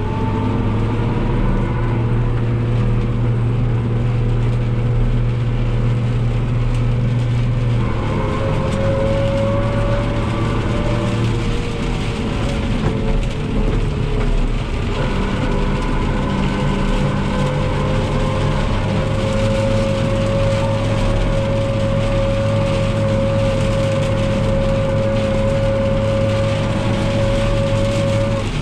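New Holland TM165 tractor running on the road, heard from inside its cab: a steady diesel drone with a high whine over it, the pitch shifting a few times as the speed changes.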